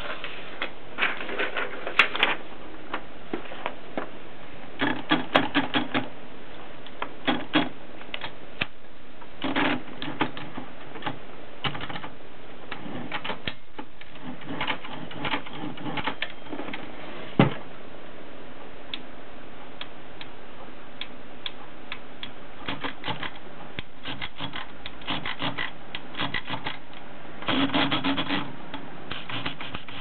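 Adler Tippa S portable manual typewriter being worked by hand: irregular mechanical clicks and clacks, some single and some in quick runs, with the busiest runs about five seconds in and near the end.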